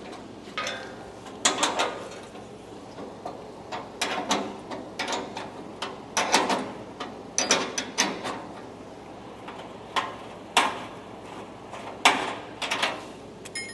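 Hand tools and loose steel body parts clanking and clicking as a car's front end is taken apart: irregular knocks and rattles, about a dozen over the stretch, some ringing briefly.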